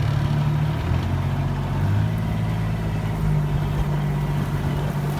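A vehicle's engine running steadily as it drives, heard from on board, its pitch shifting slightly a couple of times.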